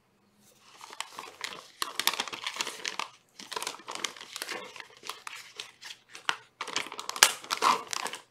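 Crinkling and rustling in close, crackly bursts, starting about half a second in, pausing briefly twice and loudest near the end.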